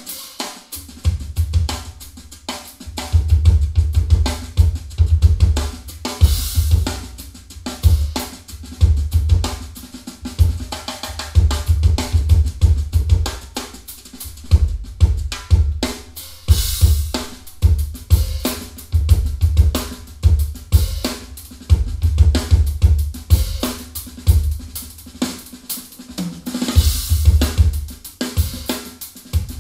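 A drum-kit recording played back through Edifier R1855DB bookshelf speakers with a subwoofer switched on: kick drum, snare, hi-hat and cymbal crashes over heavy deep bass.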